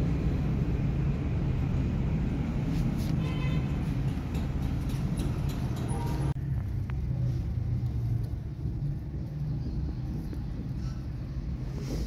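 Steady low outdoor rumble of background noise, like distant road traffic. About six seconds in, its higher part drops away abruptly, leaving mostly the low rumble.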